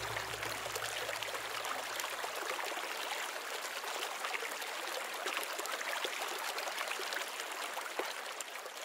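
Running water, a stream babbling and trickling steadily, fading out near the end. The low notes of closing music die away in the first second.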